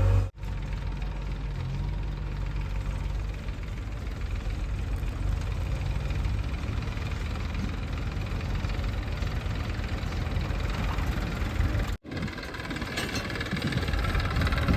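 Diesel engine of a JCB 3DX backhoe loader running steadily at a low rumble. The sound cuts out abruptly twice, just after the start and about twelve seconds in, and grows louder near the end.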